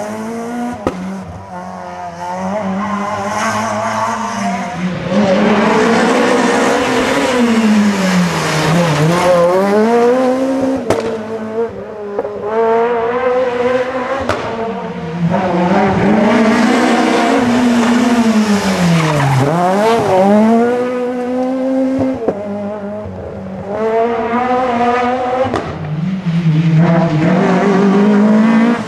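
Rally cars' engines revving hard at full throttle. The pitch climbs, drops sharply and climbs again several times as the cars brake, change gear and accelerate away through the corners.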